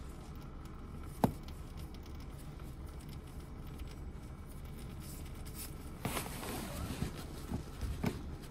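Handling noise as the plastic oil filter housing cap of a Mercedes B180 diesel is slowly loosened by hand: one sharp click about a second in, then rustling and a few light knocks near the end, over a steady low hum.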